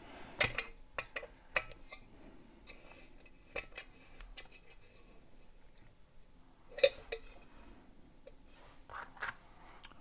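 Car door lock cylinder in its metal housing being handled and clamped into a small bench vise: scattered light metallic clicks and knocks, with one louder knock about seven seconds in.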